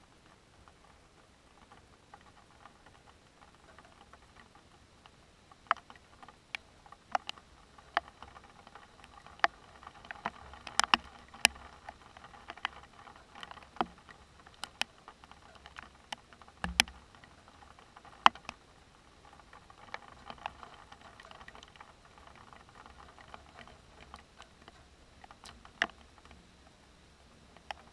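Large, scattered raindrops tapping sharply and irregularly, roughly one a second, over a soft hiss: the first heavy drops of an approaching thunderstorm.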